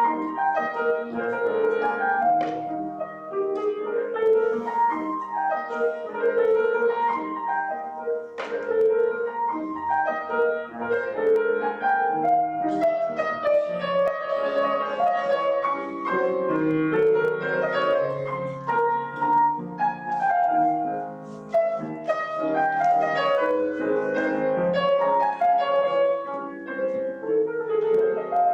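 Piano playing a slow, flowing offertory piece, a steady run of notes with a melody over a lower accompaniment.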